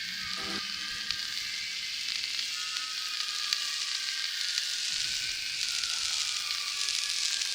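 Dark cinematic horror sound design: a steady crackling, sizzling hiss with a faint high tone drifting slowly downward. A low pulsing chord gives a last pulse and stops about half a second in.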